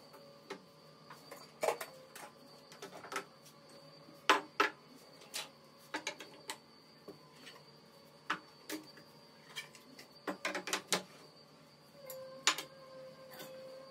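Kitchen items being handled and set down on a countertop: irregular clicks, taps and light clinks, some in quick clusters, over a faint steady tone.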